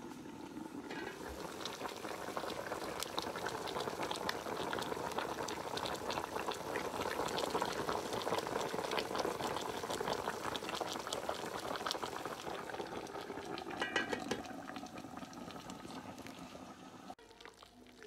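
A large aluminium stockpot of boil-up (bacon bones, pumpkin, kumara, potatoes and watercress) bubbling at a steady boil, the open pot crackling with bursting bubbles. It stops abruptly near the end.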